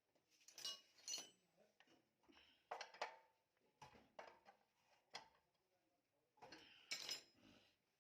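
Light metallic clinks and clatters of tools and metal engine parts being handled and set down, about half a dozen irregular knocks.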